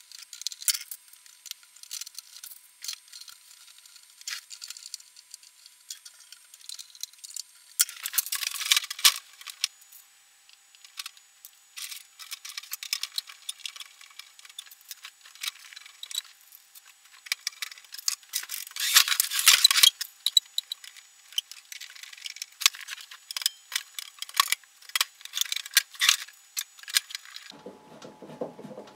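Sheet-metal casing panels of a MIG welder being fitted back on and screwed down: a run of clicks, scrapes and small metallic rattles, with louder bursts of scraping about eight and nineteen seconds in.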